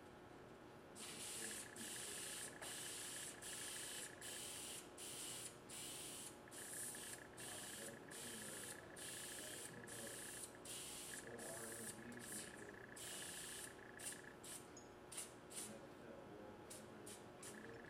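Preval aerosol sprayer misting DuraCoat paint onto a rifle buttstock for a light base coat, in a series of short hissing bursts with a faint whistle in some of them, starting about a second in. Near the end the bursts get shorter and come more quickly.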